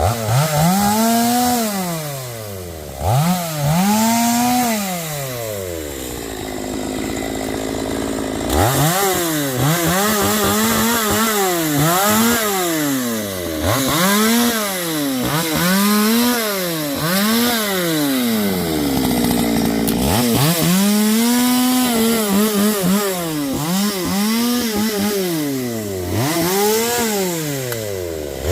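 Chainsaw engine revving up and down over and over, each rise and fall lasting about a second and a half, with two short stretches of lower, steady running, one about a quarter of the way through and one about two-thirds of the way through.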